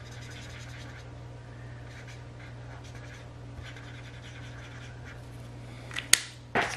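Felt-tip marker rubbing on paper in short, faint, scratchy strokes while colouring in. A few sharp clicks near the end are the loudest sounds.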